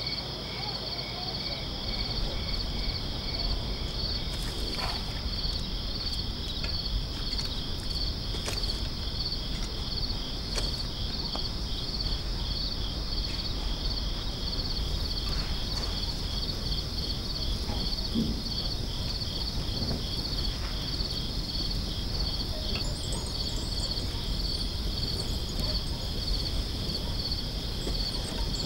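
Crickets chirping in a steady, evenly pulsing night chorus. A second, lower-pitched chirp drops out about four seconds in. A few faint soft knocks sit over it.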